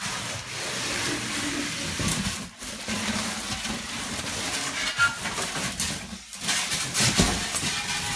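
Rustling and scraping of packaging as a mini fridge is unpacked: a continuous noisy rustle with a few brief pauses and scattered knocks.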